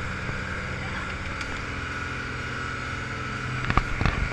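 Motorboat underway at speed: a steady engine drone mixed with rushing water and wind, with a few sharp knocks near the end.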